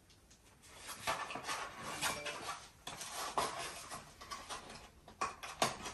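Hands opening a small cardboard product box: scattered crinkles, scrapes and light clicks of the packaging.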